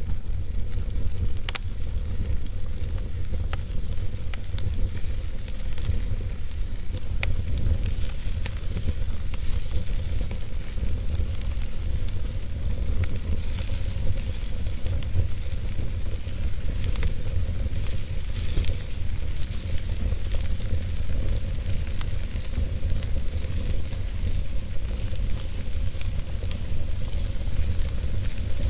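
Wood fire burning in a fireplace: a steady hiss and low rumble with scattered sharp crackles and pops.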